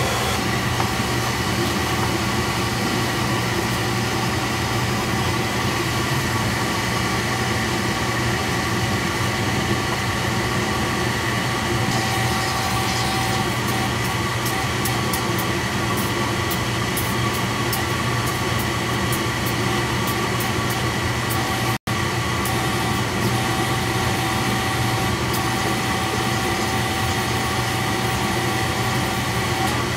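Beckett oil burner running with a steady hum of its motor, blower fan and fuel pump while the pump is being bled of air through a bleed tube after a new oil tank and line were fitted.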